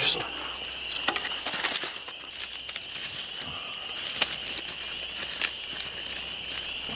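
Hands rummaging in a stone-lined earth oven: dry, charred leaf wrapping crinkling and rustling, with scattered sharp clicks and scrapes of stones and dirt.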